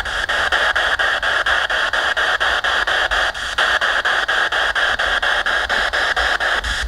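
Radio ghost box sweeping through stations, hissing static through its small speaker, chopped by the sweep about six or seven times a second.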